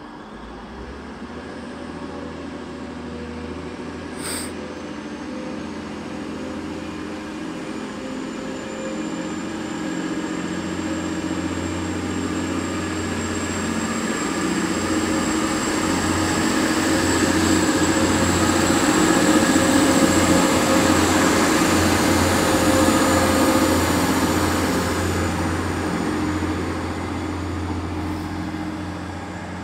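TransPennine Express Class 185 diesel multiple unit running along the station platform, its diesel engine drone and wheel noise growing to a peak about two-thirds of the way through and then fading as it moves off. A thin high steady whine runs through most of it, and there is a sharp click about four seconds in.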